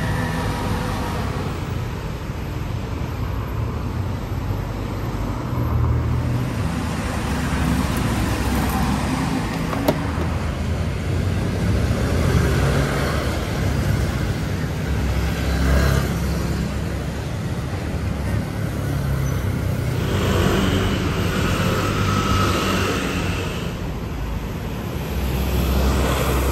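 Road traffic: a steady low rumble of vehicle engines and tyres that swells and fades several times as vehicles pass.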